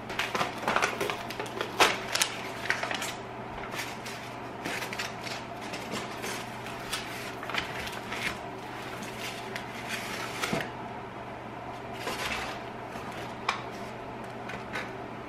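Brown kraft paper wrapping rustling and crackling in quick irregular crinkles as a parcel is torn open and unwrapped, busiest at first and thinning out later. A light knock near the end as a glass jar is set down on the counter.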